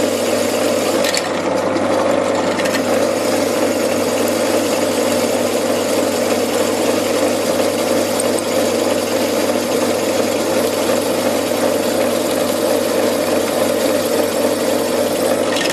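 Drill press running steadily with its spindle turning in reverse, a constant motor hum.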